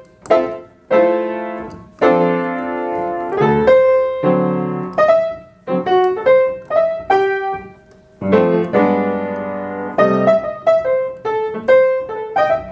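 Solo jazz piano improvising over a tune's chord changes: right-hand single-note lines over left-hand chords, played in short phrases with brief gaps between them.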